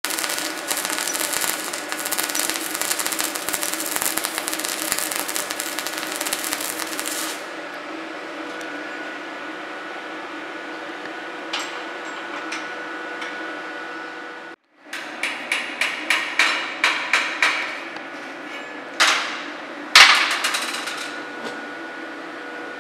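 Flux-cored arc welding: the arc's steady dense crackle for about seven seconds, then it stops, leaving the welding machine's steady hum. After a cut, a quick run of metal hammer taps, about three a second, then two heavier knocks, typical of chipping slag off the flux-cored bead.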